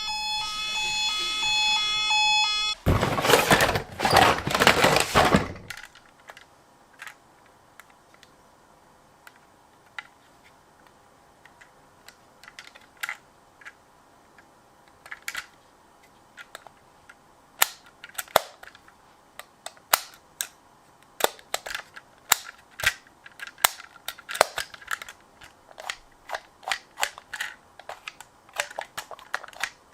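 A short electronic siren-like tone pattern, then about three seconds of loud noise, followed by scattered sharp clicks and clacks of small die-cast toy cars being handled and set down, coming thicker in the second half.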